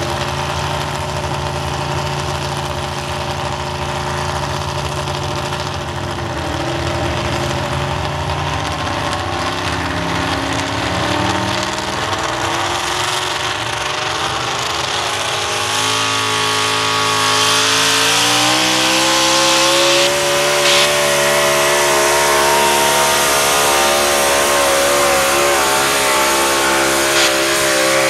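Ford pickup truck's engine running steadily, then revving up hard about two-thirds of the way in and holding at high revs as it pulls the sled, with a rushing noise joining in as it goes.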